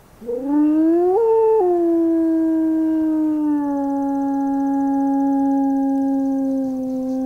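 Recorded howl of a single adult wolf played through an amplifier and horn loudspeaker, as an artificial call to draw a reply from wild wolves. It is one long howl that rises in pitch over its first second, briefly breaks higher, then settles into a long, steady held note.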